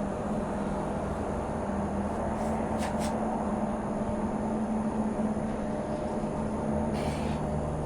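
An engine running steadily, its low hum dropping slightly in pitch about two-thirds of the way through, with a couple of faint ticks about three seconds in.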